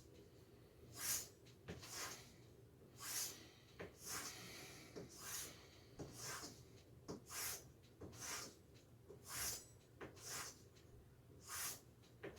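A straight razor being stropped: a soft swish about once a second as the blade is drawn along the strop, with faint clicks between strokes as it is flipped on its spine.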